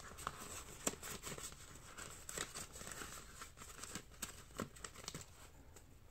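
Cash and paper envelopes in a ring budget binder being handled: soft rustling and crinkling of paper with scattered light clicks and taps as a bill is tucked into an envelope and the binder's pages are turned.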